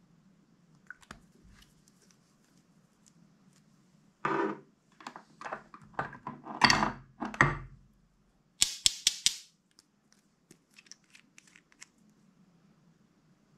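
Small plastic bottles and caps being handled: knocks and rustles of plastic against plastic and the table, then a quick run of about five sharp clicks, and a few light ticks near the end.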